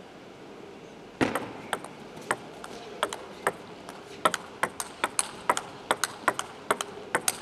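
Table tennis rally: a serve about a second in, then a fast run of sharp clicks as the plastic ball strikes the rubber-covered bats and the table in turn, stopping near the end.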